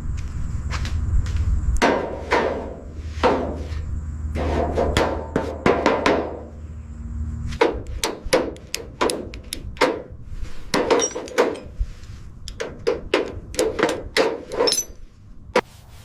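Repeated hammer blows, irregularly spaced, each with a short ring; they come faster in the second half. A steady low hum runs under the first half and stops about seven and a half seconds in.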